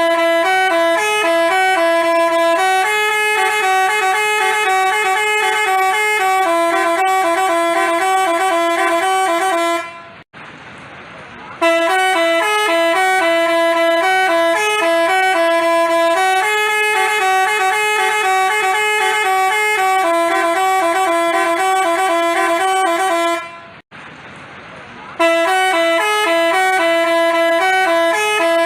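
Telolet basuri multi-tone horn playing a repeating melody of loud held notes that change pitch. It breaks off twice, about ten and twenty-four seconds in, for about a second and a half each time, leaving only a fainter background noise.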